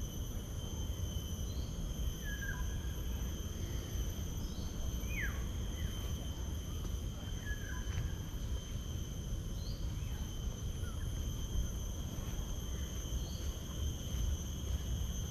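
Steady high-pitched insect drone, the constant trilling of crickets or cicadas in garden vegetation, with a few short bird chirps scattered through it over a low rumble.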